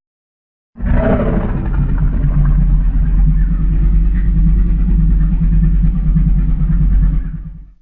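A Godzilla film sound effect: a deep, loud rumble that starts abruptly about a second in with a harsher edge at first, holds steady for about seven seconds, then fades out.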